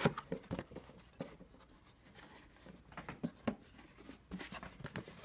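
A cardboard box being handled and opened: irregular scratchy rubbing with a few sharp light knocks and clicks.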